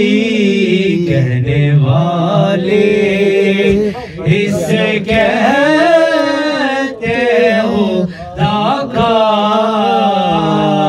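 A man singing into a handheld microphone: long held notes that waver and slide up and down in pitch, with short breaks between phrases.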